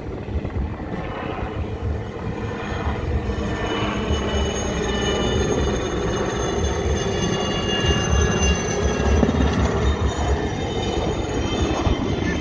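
Light military helicopter of the Alouette III type flying past: its turboshaft gives a steady high whine over the low, pulsing rumble of the rotor.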